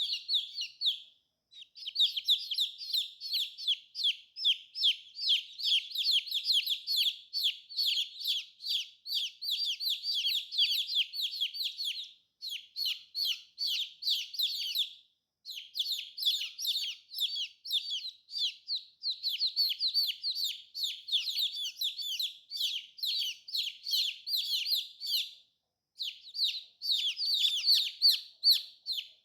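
A group of baby chicks peeping, many quick, high, downward-sliding peeps overlapping in a steady stream, cutting out briefly four times.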